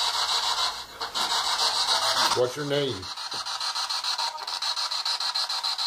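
Scanning radio static from a spirit box sweep: a steady hiss chopped several times a second, with a brief fragment of a voice about two and a half seconds in.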